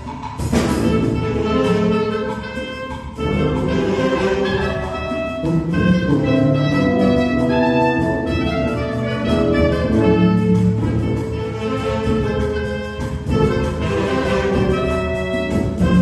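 Symphonic wind band playing: clarinets, brass and a sousaphone hold and move through sustained chords, with a sharp percussion hit about half a second in.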